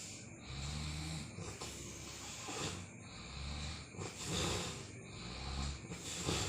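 A sleeper snoring: three long low snores, with a short noisy breath between each.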